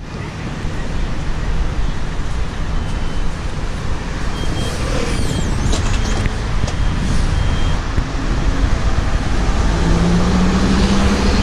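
City street traffic rumbling steadily, with a few short high beeps in the middle. Near the end a city bus pulls up alongside and its engine hum comes in, steady and low.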